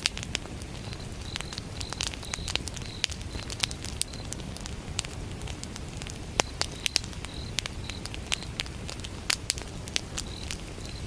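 Wood campfire burning with a steady low rush and frequent sharp crackles and pops, the loudest pops a little past the middle. Crickets chirp in short repeated pulses through the first few seconds and again near the end.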